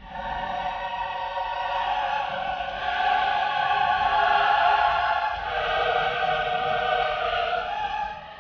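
Epic choral music: a choir singing long held chords. It comes in suddenly at the start and falls away near the end.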